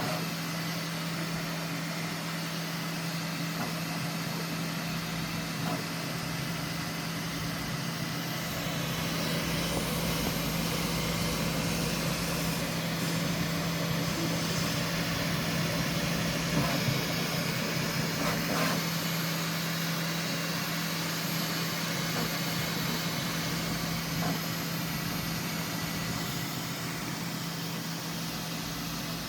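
Bambu Lab P1S 3D printer running at the very end of a print: a steady fan hum and whir with a few faint ticks.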